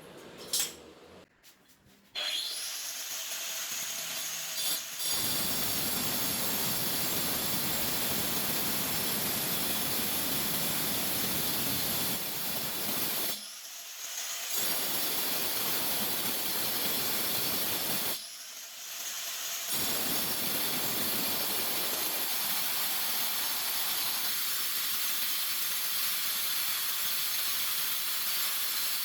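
Power tool running steadily under load, cutting or grinding hard material, with two brief stops near the middle.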